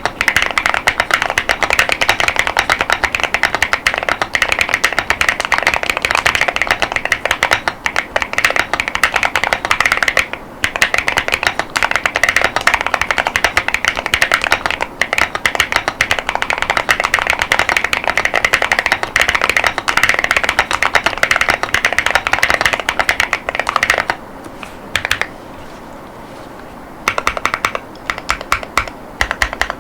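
Continuous typing on a mechanical keyboard with Tecsee Neapolitan tactile 40 gf switches and dye-sub PBT OEM-profile keycaps: a dense, fast stream of keystroke clacks. The typing breaks off for a few seconds late on, with a stray keystroke or two, then picks up again.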